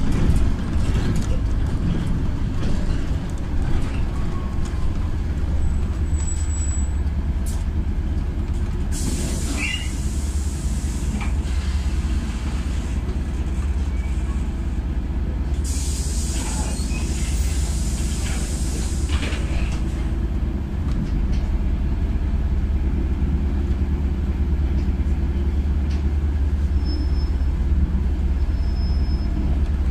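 Inside a moving LiAZ 5292.67 city bus with a compressed-natural-gas YaMZ engine: a steady low engine and road rumble, with two bursts of hissing air from the bus's air system, about nine and sixteen seconds in, the second lasting several seconds.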